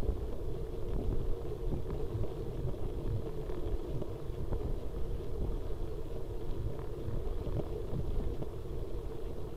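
Wind buffeting and road rumble from a moving bicycle, picked up by the microphone of a seatpost-mounted Cycliq Fly6 rear light-camera. It is a steady, dense rumble with a constant hum and a few faint small rattles.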